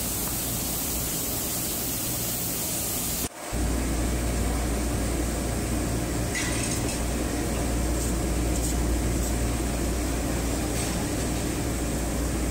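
Jonsen SGP1000 deburring machine running: a steady hiss of rushing air, broken off suddenly about three seconds in, then a deeper steady machine hum with faint scraping now and then.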